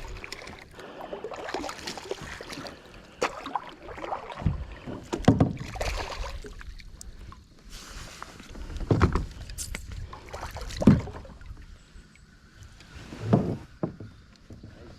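Kayak being paddled on a creek: irregular swishes of the paddle through the water, with a few louder strokes and knocks.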